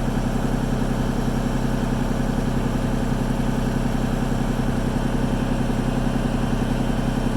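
Heavy equipment engine idling steadily, with an even low hum and no revving.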